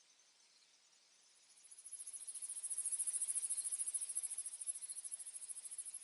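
An insect trilling: a very high-pitched, rapidly pulsing song that swells in about a second and a half in and then runs steadily. A fainter, lower pulsing insect song goes on underneath.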